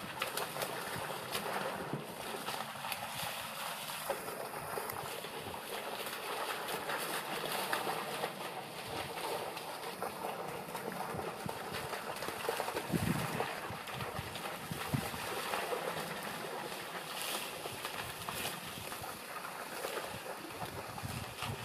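Dry reeds rustling and crackling, with light splashing in shallow marsh water, as a hunting dog pushes through a flooded reed bed. A few louder knocks come about 13 and 15 seconds in.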